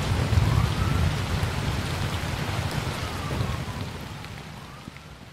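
Heavy rain pouring down, a dense even hiss of drops, fading out steadily. A low rumble under it dies away in the first second or so.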